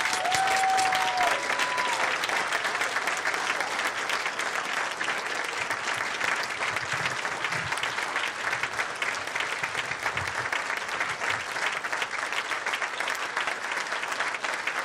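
Audience applauding steadily, a standing ovation, with a brief cheer in the first couple of seconds.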